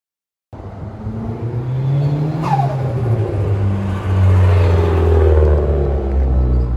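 Dodge Neon SRT-4's turbocharged 2.4-litre four-cylinder running under throttle, cutting in suddenly about half a second in. About two and a half seconds in a whistle falls sharply in pitch, and the engine's low note sinks slightly around four seconds in.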